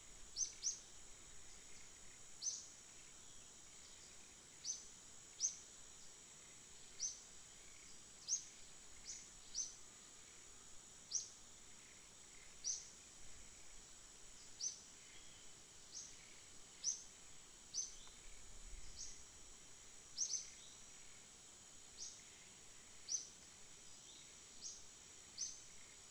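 Birds chirping: short falling chirps at irregular spacing, roughly one a second, over a steady high insect drone.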